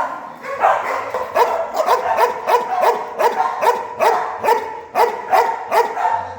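Dog barking over and over at about three barks a second, without a break.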